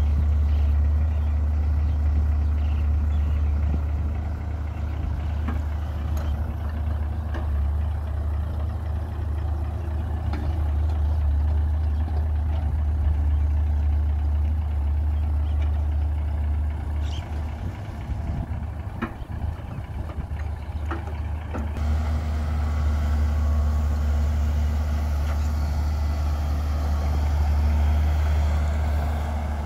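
Loaded UD dump truck's diesel engine running steadily as the truck drives over soft soil: a deep, steady drone that dips briefly a little past the middle, with a few short clicks.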